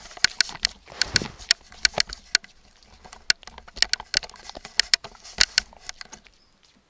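Irregular sharp clicks and snaps close to the microphone, several a second, over light rustling, from an animal moving or feeding beside the trail camera. They die away shortly before the end.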